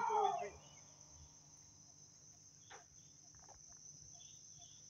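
Steady high-pitched insect chirring, over which a drawn-out voice call trails off about half a second in. A single faint click comes near the middle.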